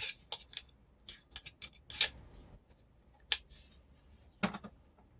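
Kitchen items being handled and fitted into a drawer: a scatter of small clicks and knocks with light rubbing and rustling, the sharpest knocks about two, three and four and a half seconds in.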